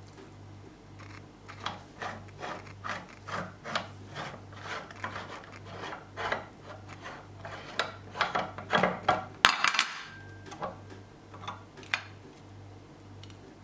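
Metal parts of a hand meat grinder being taken apart: a run of short scraping and rubbing strokes as the threaded end ring is unscrewed and the cutting plate and knife are worked loose through the cream-cake mush, with one louder sharp clatter of metal about nine and a half seconds in.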